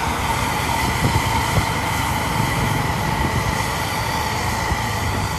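Telolet bus horn sounding one long steady note over a low engine rumble.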